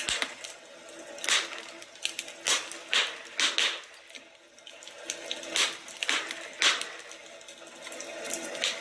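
Wood fire crackling in a fireplace, with irregular sharp pops over a steady crackle.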